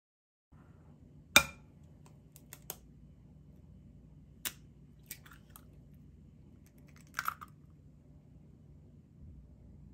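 Egg being cracked over a ceramic bowl: one sharp knock, then scattered light clicks and small crackles of eggshell as the shell is pulled apart and a stray fragment is fished out.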